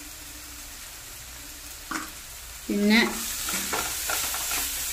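Onion-tomato masala sizzling gently in a nonstick kadai. About three seconds in, a wooden spatula starts stirring through it, mixing in freshly added chilli powder and turmeric, and the sizzle grows louder with repeated scraping strokes.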